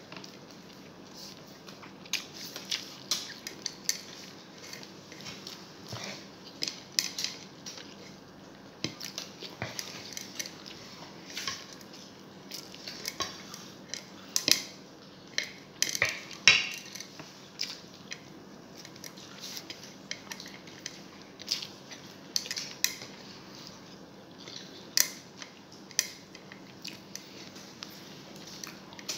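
A metal spoon clinking and scraping on a ceramic dinner plate of rice during a meal: a string of irregular sharp clicks, with a few louder clinks around the middle.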